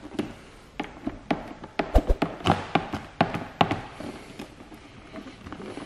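Clear paint protection film being pulled and stretched by hand over a car's side mirror, giving a string of sharp, irregular pops and crackles. They are densest in the first four seconds and thin out near the end.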